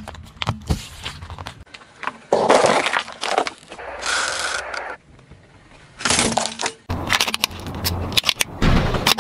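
A car tyre rolling onto and crushing small objects on asphalt, with crunching, cracking and snapping. Near the end a plastic toy car breaks under the tyre in a dense run of cracks.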